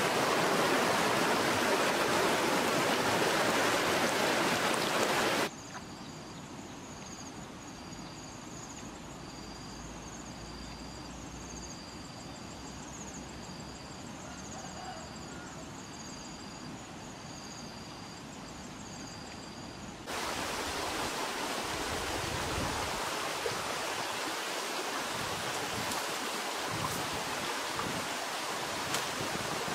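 A river rushing over rocks in rapids. About five seconds in it drops away to a quieter stretch, where a high chirping call repeats about once every second and a half. Around twenty seconds in, rushing water comes back.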